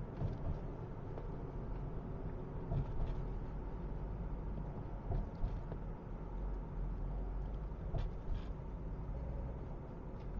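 Steady low road and engine rumble inside the cabin of a moving car, with a few faint clicks.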